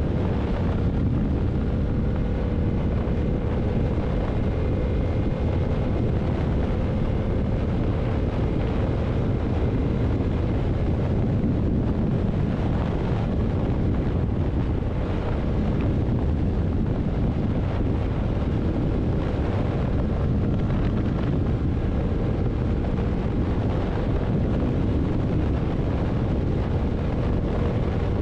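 Yamaha MT-07's parallel-twin engine running at a steady cruise, buried in heavy wind rush on the microphone.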